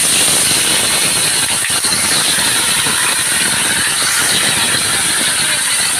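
Bhola fish pieces sizzling and crackling steadily as they shallow-fry in hot oil in a kadai.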